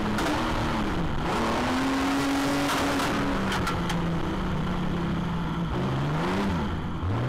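Stockcar engine heard from a camera on the car's own chassis, revving and easing off through the corners: the pitch dips and climbs about a second in, settles lower from the middle, then swoops up and down twice near the end as the throttle is blipped. A constant rushing hiss of tyres and dirt runs underneath, with a few sharp ticks a little past halfway.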